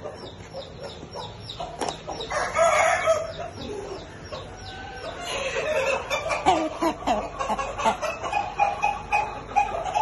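Chickens in a poultry shed: a drawn-out rooster call about two seconds in, then a busy run of short clucks from about five seconds on.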